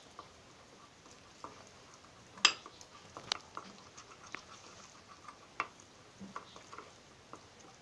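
A metal utensil stirring melted Oreo cream filling around a glass bowl: scattered light clicks and taps against the glass, the sharpest about two and a half seconds in.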